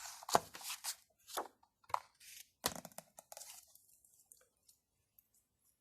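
Rustling and handling noise with four or five sharp clicks or knocks in the first three seconds, fading to a few faint ticks near the end.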